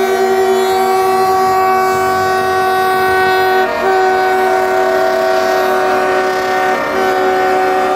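Air horns of several diesel locomotives sounding together in one long held chord, which breaks off briefly and resumes a little under four seconds in, with the locomotives' diesel engines rumbling underneath.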